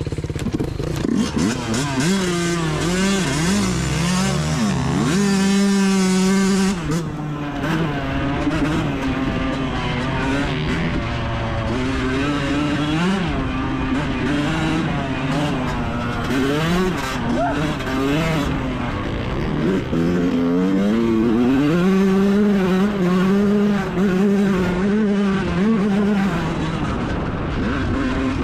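Yamaha YZ125 two-stroke dirt bike engine under way, its revs rising and falling again and again. It holds high revs briefly about six seconds in, and again for a few seconds after about twenty seconds.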